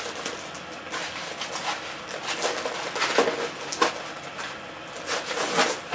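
Packaging being handled during unboxing: foam packing inserts and a plastic-wrapped unit pulled from a cardboard box, with irregular rustling, rubbing and short knocks.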